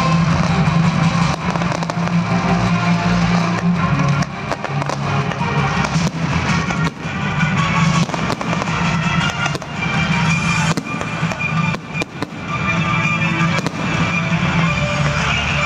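Fireworks display: many sharp bangs from bursting shells, coming irregularly and close together, over music playing.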